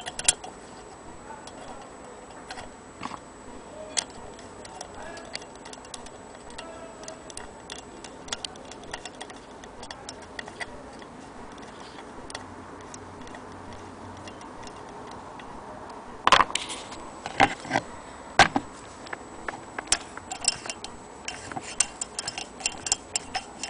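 Antique Willcox & Gibbs hand-crank sewing machine being worked at its handwheel crank: light mechanical ticks and clicks, sparse at first, then busier and louder about two thirds of the way in as the wheel is turned.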